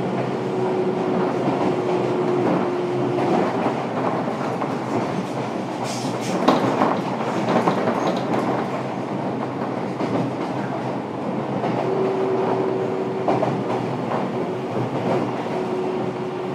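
Fukuoka City Subway 1000N series electric train running, heard from inside the passenger car: a steady rumble of wheels on rail with a few sharp wheel clicks about six to eight seconds in. A steady humming tone drops out after about three and a half seconds and returns about twelve seconds in.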